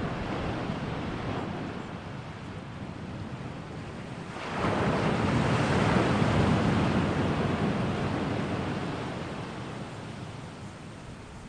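Ocean surf washing in: an even rushing noise that swells sharply about four and a half seconds in, then slowly recedes.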